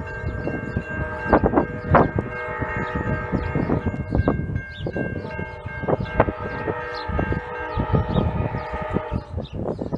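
Railroad grade-crossing warning bell ringing repeatedly, its struck tones ringing on over one another, over a low rumble: the sign of an approaching train.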